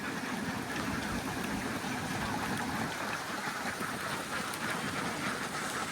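A large flock of ducks quacking all together in a dense, continuous din, with no single call standing out.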